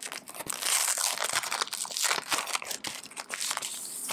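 Clear plastic packaging sleeve of a pencil board crinkling and crackling as it is handled, with many small dense crackles.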